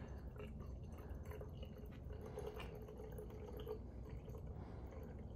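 Degreaser concentrate poured from a jug into a plastic spray bottle partly filled with water: a faint trickle and splash, with a faint steady tone in the middle of the pour.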